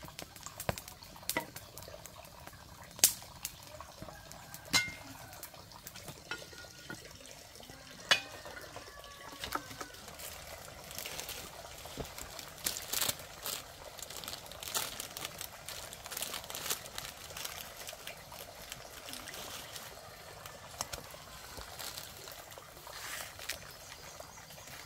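Pot of water heating over a wood fire: a run of small crackling ticks over a faint hiss, with a few sharp knocks in the first half.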